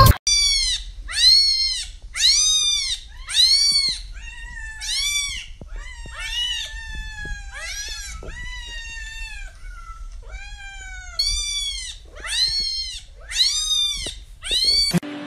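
Cat meowing over and over, about once a second: high, thin meows that rise and fall, with a few longer drawn-out ones in the middle.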